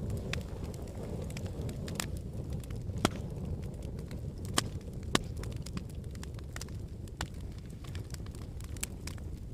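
Campfire burning: a steady low rumble with irregular sharp crackles and pops, the loudest about three, four and a half and five seconds in.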